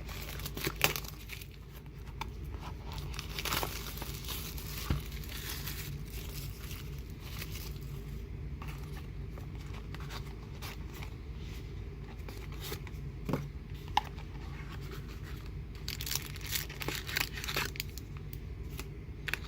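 Packaging of a Pokémon card kit being torn open and crinkled by hand: irregular tearing and crackling with occasional sharp clicks, over a steady low hum.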